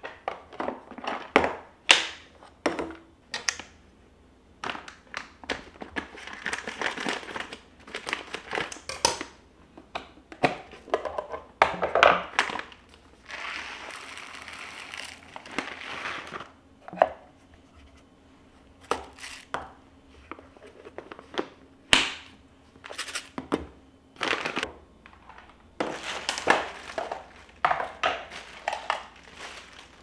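Dry food being decanted into clear plastic airtight containers: plastic packaging crinkling, with sharp clicks and knocks from the containers and their lids. Around the middle come a few seconds of rice grains pouring into a container.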